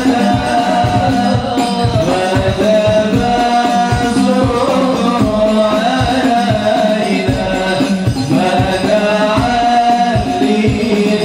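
Devotional sholawat-style singing, a voice holding and bending long melodic notes, over frame drums beating a steady rhythm.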